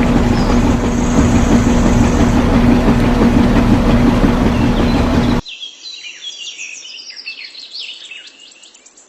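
A loud, steady mechanical noise with a low hum, like a small motor running. It cuts off abruptly about five seconds in, and birds chirping follow.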